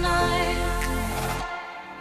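Background music with sustained tones and a melody; it thins out and quietens about one and a half seconds in.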